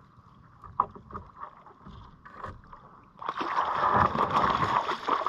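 Water splashing and churning as a hooked trout thrashes at the surface and is scooped into a landing net, starting suddenly about three seconds in. Before it, a few light clicks and knocks.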